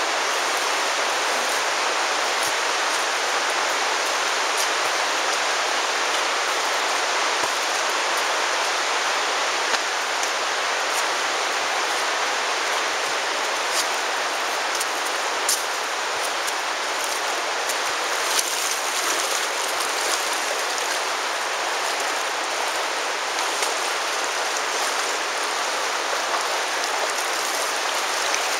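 Virgin River water rushing and splashing, a steady unbroken rush, with a few short sharp ticks on top.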